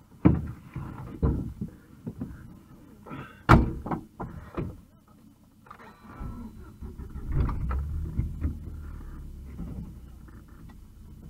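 Footsteps rustling through dry leaves and a few knocks, the sharpest about three and a half seconds in. From about seven seconds in, a low steady engine hum.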